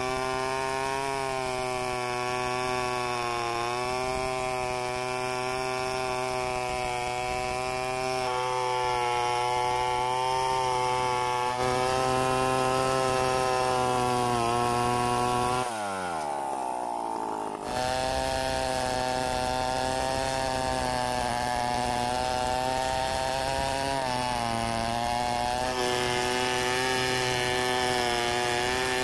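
Stihl 070 two-stroke chainsaw running at full throttle as it rips lengthwise through a log to cut boards, its engine note wavering slightly under load. About halfway through, the note falls away for a moment, then the saw is back at full throttle.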